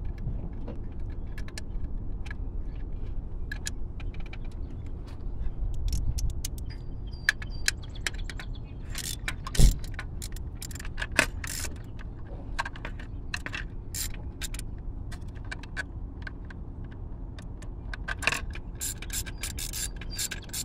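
Scattered clicks, taps and light scrapes of hands and a tool working on metal parts at a car engine's distributor, with one sharper knock about ten seconds in. A low steady rumble runs underneath.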